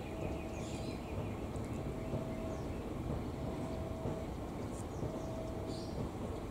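Diesel locomotive hauling a passenger train, its engine running with a steady low rumble as it approaches slowly. A short tone repeats about every one and a half seconds, and birds chirp now and then.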